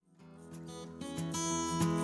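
Background music: acoustic guitar strumming, fading in from silence and growing louder.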